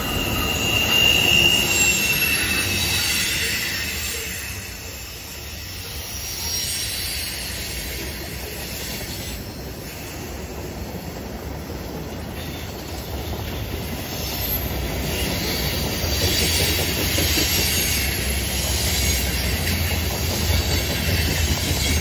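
Freight train of tank cars and covered hoppers rolling past, with a steady low rumble and high-pitched steel wheel squeal as it takes a curve. The squeal is loudest about a second in, fades, then grows again in the second half.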